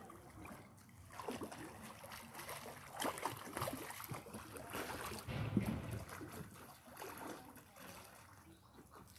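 Pool water splashing and sloshing from a swimmer's arm strokes, in irregular splashes that are busiest through the middle and tail off near the end.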